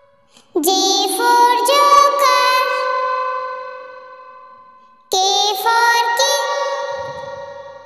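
A child's singing voice with music: two short sung phrases, one starting just after the beginning and one about five seconds in, each ending on a held note that fades away.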